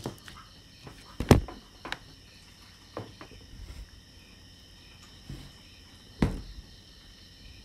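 A few sharp knocks and light handling noises as medicine packets and a foil blister sheet are set down on a table, the loudest about a second and a half in and another near the end. Crickets chirp faintly and steadily in the background.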